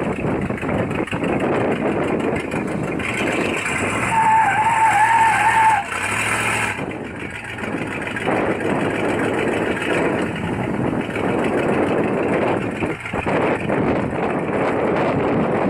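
1958 Chevrolet Apache pickup running and driving, with engine and road noise throughout. About four seconds in, a high, wavering squeal lasts for nearly two seconds.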